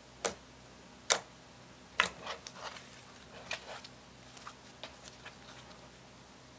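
Clear slime tinted with eyeshadow being pressed and stretched by hand, giving sharp clicking pops as air pockets in it burst: three louder pops in the first two seconds, then a run of softer, smaller clicks that die away.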